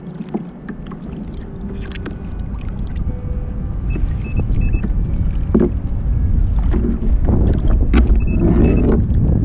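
Wind buffeting the microphone and water lapping against a kayak hull, growing steadily louder, with a few faint, short high beeps.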